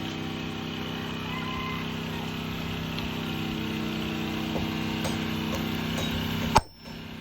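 An electric motor, such as a workshop power tool, runs with a steady hum and a few faint ticks. A sharp click comes near the end, and the sound then drops away suddenly.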